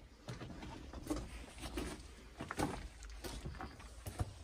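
Footsteps scuffing and clicking on rocky ground, irregular and uneven, over a steady low rumble.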